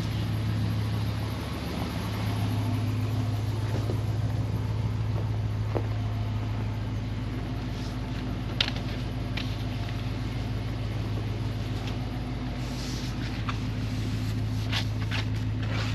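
Pickup truck engine running with a steady low hum, heard from inside the cab, with a few light clicks and knocks scattered through it.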